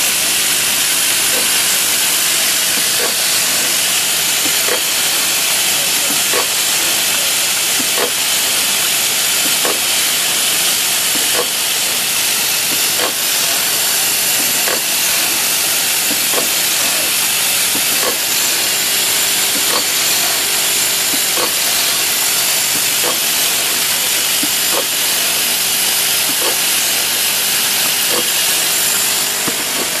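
Drawer-lock parts production machinery (vibratory bowl feeder and automatic machining station) running: a steady, loud, hissing factory din, with a short regular knock about every one and a half seconds as the machine cycles.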